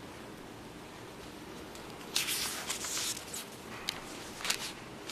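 Brief rustling about two seconds in, then a few short sharp clicks, over low steady background hiss.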